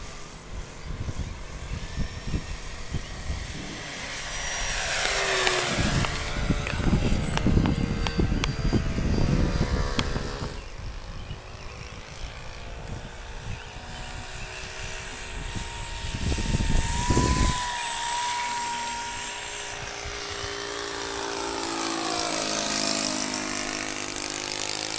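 Electric motor and propeller of a radio-controlled model airplane whining in flight, its pitch sliding as the plane passes by. Stretches of low wind rumble on the microphone come and go, the last cutting off abruptly about two-thirds of the way in.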